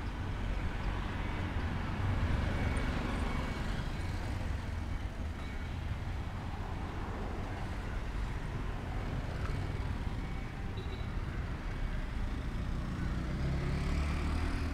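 Road traffic: vehicle engines running and passing, a steady low rumble with no single sound standing out.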